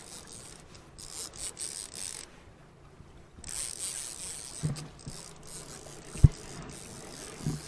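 Fishing reel being cranked, its gears rasping in stretches, as line is wound in on a hooked king salmon. A few low knocks from handling the rod, the sharpest about six seconds in.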